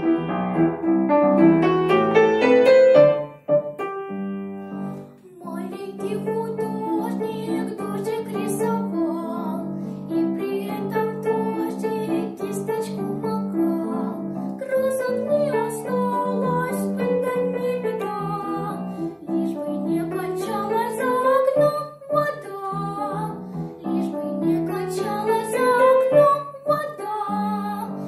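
A girl singing a children's song in Russian to upright piano accompaniment. The piano plays alone at first, then stops briefly about three to five seconds in, and her voice comes in over the piano about six seconds in.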